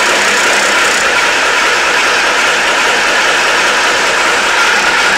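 Praga S5T truck's diesel engine running steadily on a cold start, heard from inside the cab.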